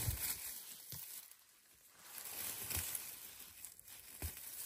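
Rustling and crunching of forest-floor vegetation with a few soft low thumps, as a person moves through the undergrowth.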